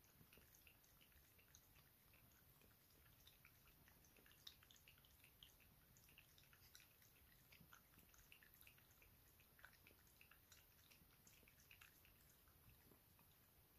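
Bolonka Zwetna dog lapping milk from a small glass bowl: faint, irregular clicks of the tongue, several a second.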